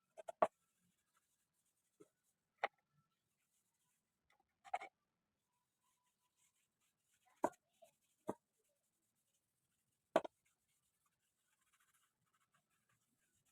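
Scattered light knocks and clicks, about nine at irregular intervals, with near silence between them and no machine running.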